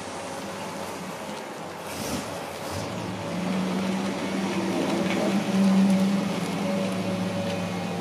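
A Ford 302 V8 in a 1934 Ford ute running at low speed as the truck drives slowly past, its steady engine note growing louder as it comes near and loudest about six seconds in.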